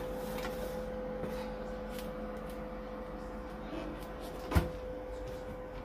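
A metal baking tray being pulled out of a countertop electric oven, with a few small clicks and one sharp knock about four and a half seconds in. A steady hum runs underneath.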